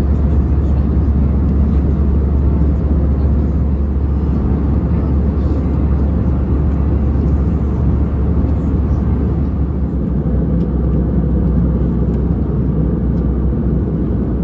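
Steady cabin noise inside an Airbus A320-214: a deep, even rumble of its CFM56 engines, easing slightly about ten seconds in.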